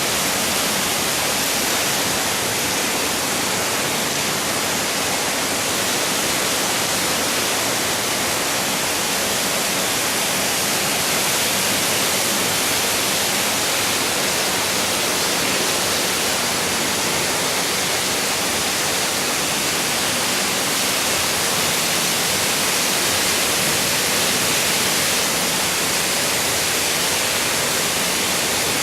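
Waterfall: a steady rush of falling water that holds an even level throughout.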